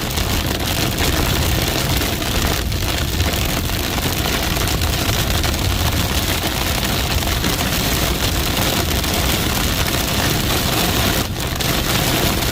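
Heavy rain mixed with hail pelting down on a vehicle: a loud, dense, steady roar of drops with a low rumble underneath, easing for a moment about 11 seconds in.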